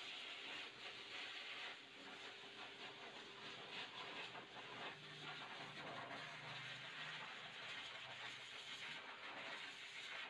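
A small motor running faintly with a steady hum and a hiss, and a lower hum joining in around the middle.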